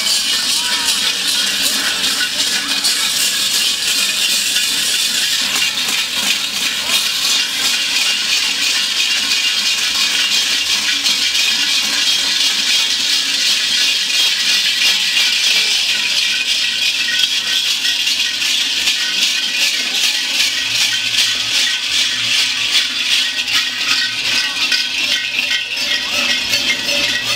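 Many round metal crotal bells worn on the belts of fur-costumed Perchten, jangling and clanging without a break as the wearers walk.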